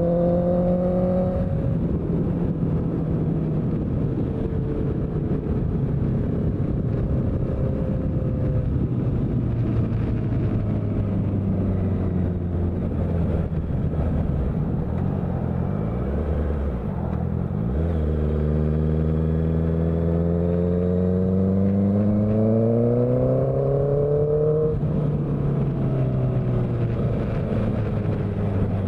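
Honda CBR650F inline-four running through a CS Racing aftermarket exhaust under riding load. The engine note eases off slowly, then revs up in a long rising sweep over several seconds and drops sharply, as on a throttle-off or gear change, before building again.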